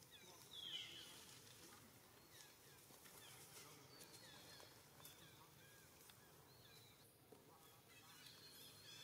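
Faint animal calls: short, high chirps scattered throughout, the loudest cluster about a second in.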